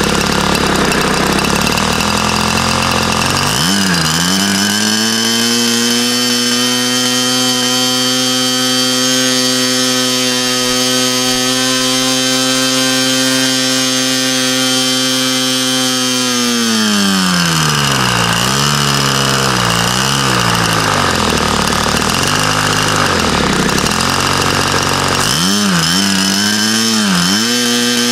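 TSI 120 two-stroke glow engine with a Xoar 17x7 propeller, running on a bench test stand. It starts at a low, uneven idle, is throttled up about four seconds in to a steady high speed of close to 7,800 rpm and held for about twelve seconds, then drops back to an uneven idle. Near the end it revs up and down twice and climbs again.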